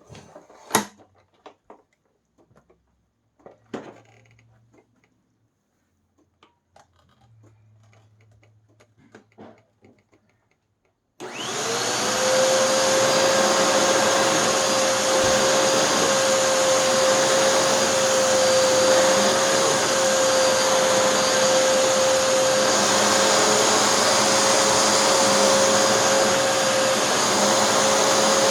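A few handling clicks and knocks, then about eleven seconds in a Hoover NanoLite stick vacuum switches on: its motor whine rises quickly and then runs steadily, with the power nozzle's brushroll turned by an extremely stretched belt.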